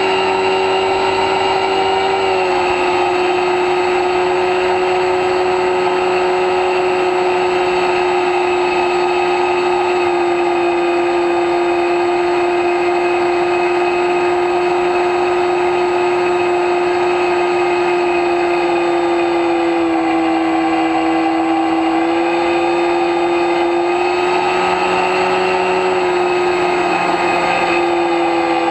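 Electric brushless motor (3648, 1200 KV) spinning a 9x6 pusher propeller on an X-UAV Talon model plane in flight, a steady loud whine. Its pitch drops slightly about two and a half seconds in, dips again near twenty seconds in and climbs back a couple of seconds later.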